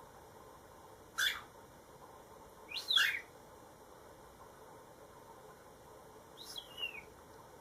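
Cockatiel calling three times in short chirps, the last one falling in pitch.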